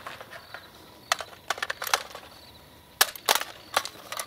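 Sharp metallic clicks and clacks of a rifle magazine change during a retention reload. A quick run of clicks comes about a second in, and louder clacks about three seconds in.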